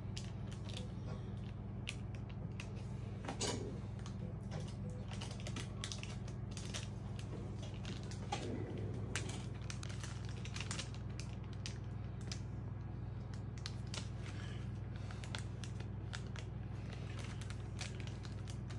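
Gloved hands pressing and smoothing a tattoo stencil transfer sheet onto skin, then peeling it back: scattered small paper crinkles and clicks, with a few slightly louder rustles, over a steady low hum.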